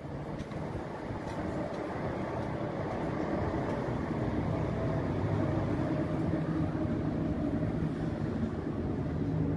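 Low steady engine rumble, growing louder over the first few seconds and then holding.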